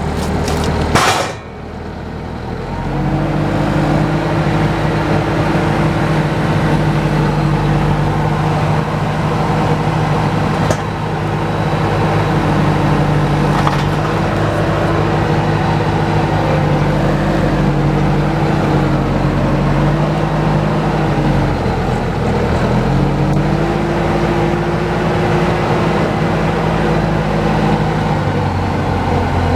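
Engine of a log-hauling vehicle running, with a brief loud clatter about a second in. The engine then revs up and holds a steady speed, drops briefly about two-thirds of the way through and picks back up.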